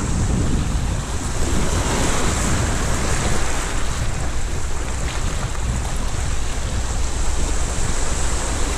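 Sea waves washing and rushing, with wind buffeting the microphone as a low rumble; a steady noise throughout.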